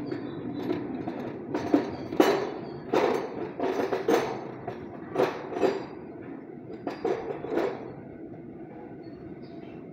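A string of sharp metallic clinks and taps, about ten spread over six seconds and then stopping, from a steel valve and hand tools knocking on a cylinder head during valve lapping, over a steady low background hum.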